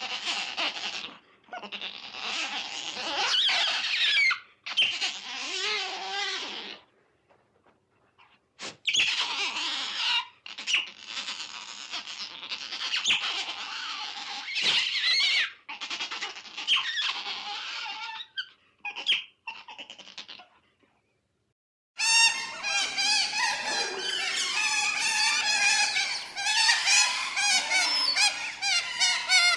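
Otters squeaking and chirping in repeated high, wavering bursts with short pauses. After a brief silence about two-thirds of the way in, a denser run of many overlapping squeaky, gliding otter calls begins.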